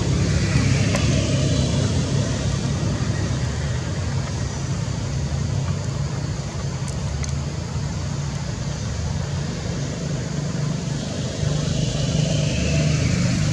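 A steady low engine hum, like a motor vehicle running nearby, over an even background rush.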